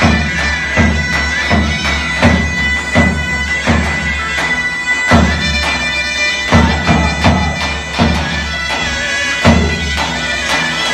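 Two zurnas playing a zeybek dance tune, one holding a steady drone (dem zurna) under the other's melody. A davul beats heavy strokes, roughly one every three-quarters of a second.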